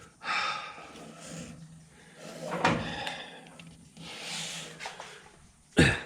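Handling noises as a heavy hydraulic lift ram is worked into place on a rope: a few scrapes and rubs, then a sharp loud knock near the end.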